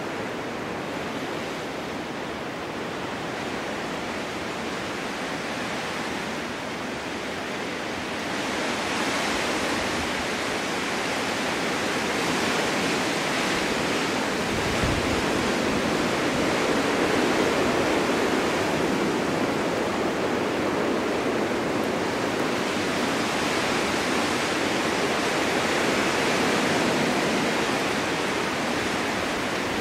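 Snowstorm wind blowing steadily as a rushing noise, building into stronger gusts about eight seconds in and again past twenty seconds.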